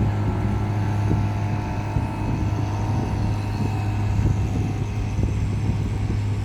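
Motor boat engine running at a steady drone as it passes along the canal.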